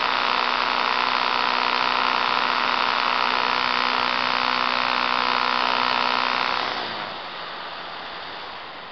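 Electric motor and propeller of an Apprentice RC trainer plane running at steady throttle, a steady hum heard from on board the plane. About seven seconds in the motor winds down and the hum falls away, leaving the rush of air over the plane.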